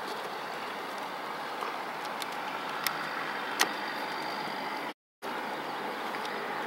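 Steady outdoor background noise with a few faint isolated clicks; the sound drops out completely for a moment about five seconds in.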